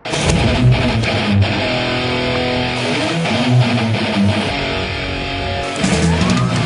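Background music led by guitar, cutting in suddenly at the start, with sustained notes over a steady low part; it turns louder and heavier about six seconds in.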